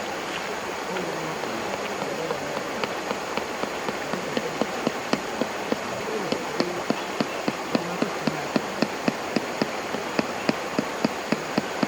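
Steady rush of a stream, with a rapid, even series of sharp knocks, about three to four a second, starting a few seconds in and running on.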